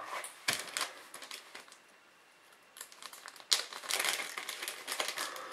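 Clear plastic parts bag crinkling as it is handled, in two spells with a short pause in the middle; the second spell is louder.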